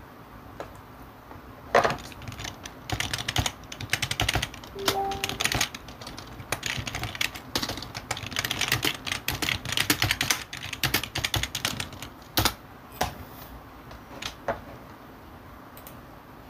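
Runs of quick, uneven typing clicks and taps, thickest in the middle of the stretch and thinning out near the end. A brief low tone sounds about five seconds in.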